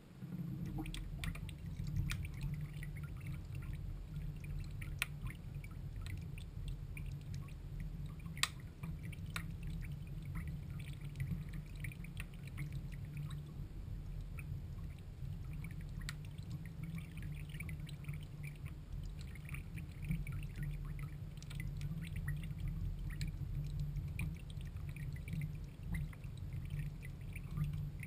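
Drops of water falling into a bowl of water: scattered splashes and plops over a steady low rumble that starts suddenly.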